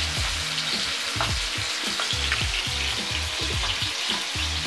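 Pieces of smoked chicken breast frying in hot oil: a steady crackling sizzle.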